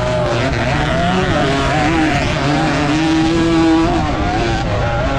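Suzuki AX115 motorcycle engine revving hard under racing throttle on a dirt track. Its pitch wavers up and down with the throttle, holds high, then drops just before four seconds in. Wind noise rushes over the onboard camera's microphone.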